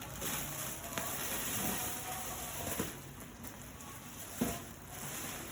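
Packaging rustling and crackling as it is handled, with a few light knocks.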